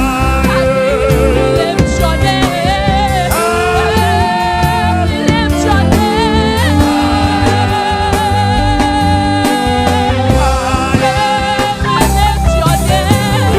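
Gospel choir singing a worship song over a live band with bass, keyboard and drums, the voices holding and bending long notes.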